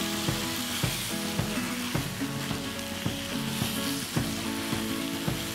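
Chicken pieces in spice paste sizzling as they are stir-fried in a Finkook non-stick wok, with repeated knocks and scrapes of a spatula and tongs against the pan.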